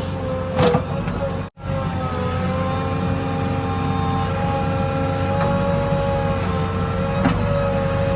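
Diesel engine of a JCB 3DX backhoe loader running steadily at work, a constant drone with a held tone above it. The sound cuts out for an instant about a second and a half in.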